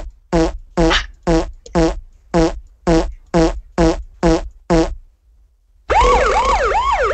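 Comic sound effects: a run of about a dozen short, low buzzing blips, roughly two a second, then after a brief pause a warbling siren-like tone whose pitch swoops up and down about three times a second.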